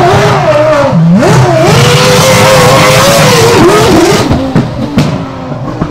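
Red Bull Formula One car's engine revving hard while it spins donuts, its pitch dipping and sweeping up again, then held high. After about four seconds the engine note drops and fades, with a couple of sharp cracks.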